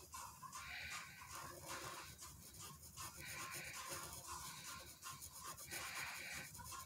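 A pen rubbing on paper as a drawing is inked, over faint instrumental background music.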